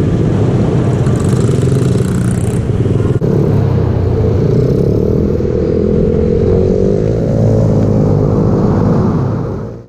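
Mini bike engine running hard, heard from an onboard camera, with a second mini bike close by. The engine note climbs a little about seven seconds in as it revs up, and the sound fades out right at the end.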